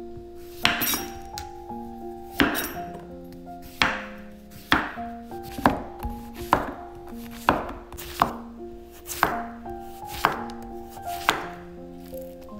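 Knife cutting through food and striking a cutting board: about eleven sharp chops at an uneven pace, roughly one a second.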